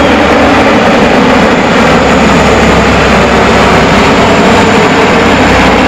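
A four-engine turboprop transport plane and two helicopters flying past in formation: a loud, steady drone of propellers, engines and rotors.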